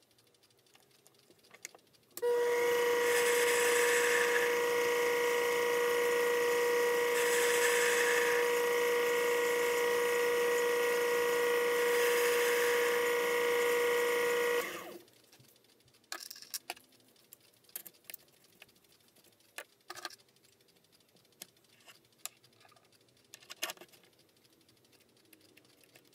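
Taig micro lathe running with a steady whine while turning a graphite piston blank, starting abruptly about two seconds in and switched off after about twelve seconds. A scattering of light clicks and taps follows.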